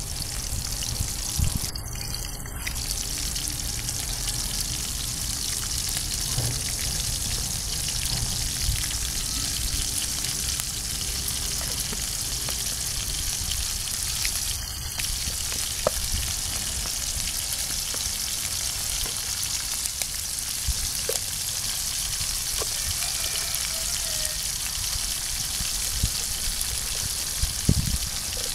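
Sliced pork frying in oil in a steel wok, a steady sizzle, with the meat still raw and just starting to cook. A few low knocks near the end.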